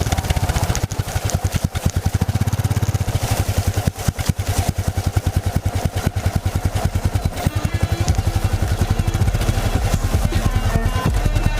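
Yamaha XT660Z Ténéré's single-cylinder engine running while riding, a rapid, uneven train of firing pulses that rises and falls with the throttle.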